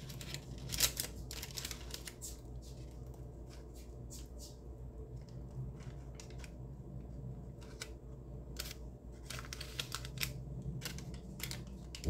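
Irregular light clicks, taps and scrapes of a plastic blender cup being emptied of thick blended oat batter into a baking pan.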